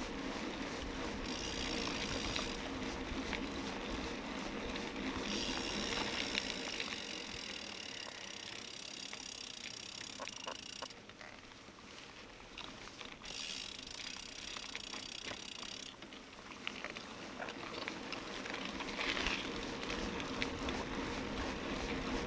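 Kellys Gate 50 bicycle being ridden: steady tyre and wind noise on the bike-mounted camera's microphone. A high buzz comes and goes three times.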